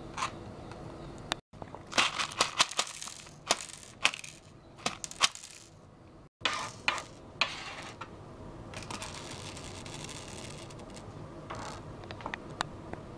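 Tiny hard Nerds candies spilling out of their cardboard box onto a hard desktop in a run of quick, sharp clicks, with a few more scattered clicks near the end.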